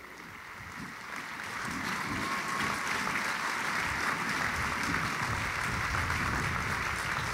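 Large crowd applauding, swelling over the first couple of seconds and then holding steady.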